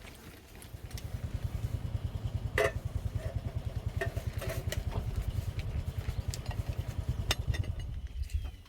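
An engine running steadily with an even low pulsing throb, which cuts off suddenly near the end. A few sharp knocks sound over it.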